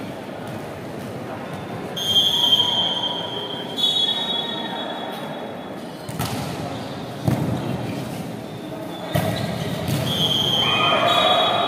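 Referee's whistle blown about two seconds in, then three sharp smacks of a volleyball being served and hit in a rally, echoing in the hall, and a second whistle about ten seconds in as the crowd's shouting swells near the end.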